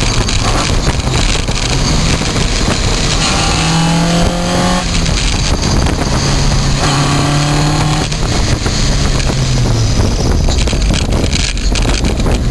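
Vehicle driving in third gear with an abnormal gear whine from the transmission: a thin whine that rises in pitch as the vehicle accelerates, heard twice, over the engine note and steady road and wind noise.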